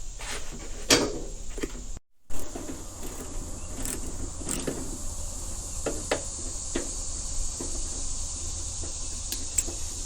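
Scattered light clicks and knocks of hand tools and small parts being handled while a car door handle is fitted, over a steady high-pitched drone, with a brief dropout about two seconds in.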